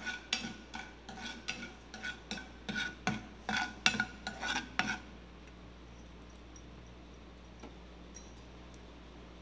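Steel spoon scraping and clinking against a non-stick frying pan while stirring mustard seeds in hot oil, about three strokes a second. The stirring stops about five seconds in, leaving a faint steady background.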